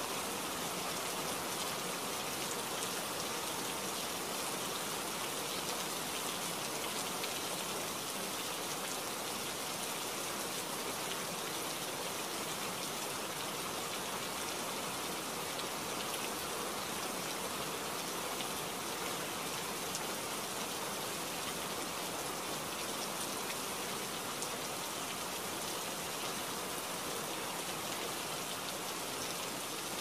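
Steady rain falling: an even hiss of countless drops that holds at the same strength throughout, with no pauses.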